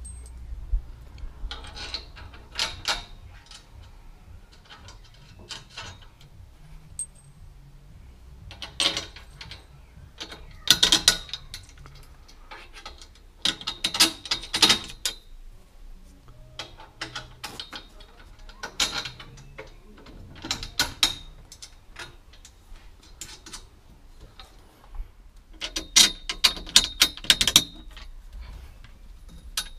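Hand ratchet clicking in short bursts of rapid clicks, several spread through and a longer run near the end, as roll cage mounting bolts are tightened.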